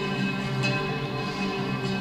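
Oud rhythms played through six spinning loudspeaker units at once: plucked string notes over sustained low tones.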